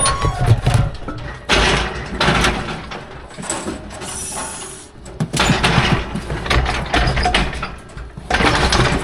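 Steel cattle-handling gates and chute rattling and clanging in several bursts of a second or more, as calves are worked through them.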